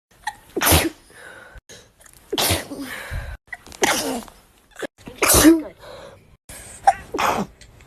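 A woman sneezing five times, short sharp sneezes about a second and a half apart.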